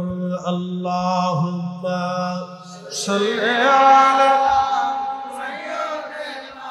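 A man's voice chanting in a drawn-out, sung tune rather than speaking. A long, steady low note gives way about three seconds in to a louder, higher note that rises and then is held.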